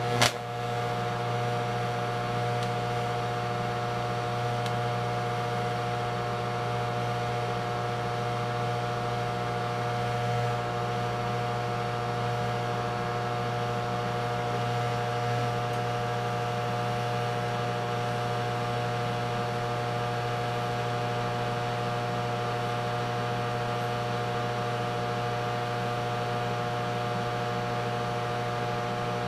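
TIG welding arc from a Hobart welder: a steady electrical buzz and hum that holds evenly throughout, with one sharp snap just after the start.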